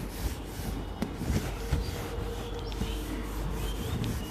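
A duster rubbing across a whiteboard, wiping off marker writing in repeated uneven strokes with a few soft knocks of the duster against the board.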